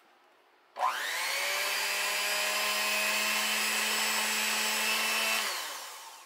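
Electric mixer starting up about a second in, its motor whining quickly up to speed and then running steadily as the twin beaters churn crumbly cookie dough in a stainless steel bowl; it winds down and fades near the end.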